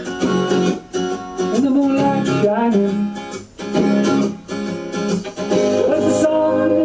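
Guitar-led country-pop backing music during an instrumental gap between sung lines.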